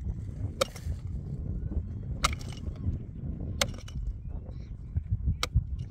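A small hand pick striking stony soil and rock, four sharp blows about one and a half seconds apart.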